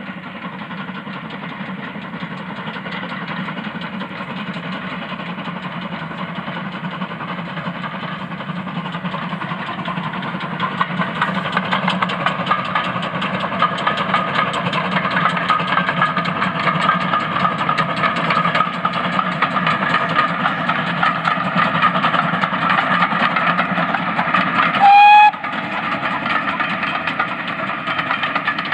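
GWR steam locomotive passing with a train of coaches, its working and the rolling of the coaches growing steadily louder as it comes closer. Near the end it gives one short blast on its steam whistle, the loudest sound.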